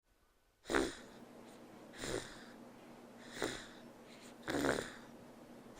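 Baby snoring sounds from a reborn baby doll: four short breathy snores, about one every 1.3 seconds, each with a whistling tone that falls in pitch.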